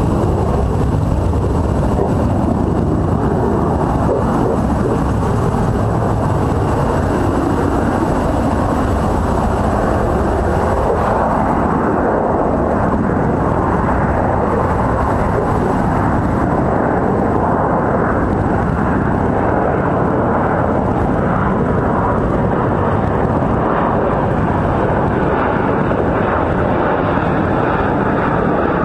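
Steady droning hum of an electric RC helicopter in flight, heard from the ground at its takeoff point, with slow rises and falls in pitch.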